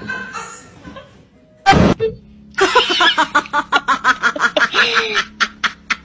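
A car horn gives one short honk, then someone in the car laughs hard in quick bursts for about three seconds.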